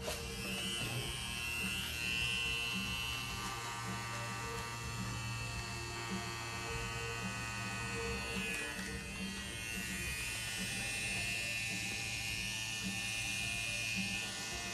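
Tattoo machine switched on with a click, then buzzing steadily, with music playing underneath.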